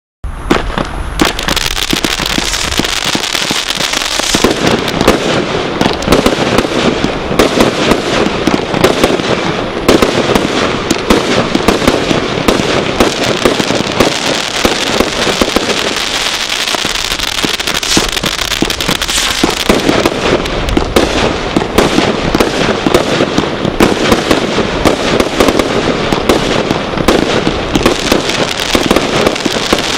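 A 'Fireworks Crazy' Cat 3 combination Roman candle barrage firing. It starts abruptly just after the beginning and keeps up a dense, continuous stream of rapid shots and bursting reports.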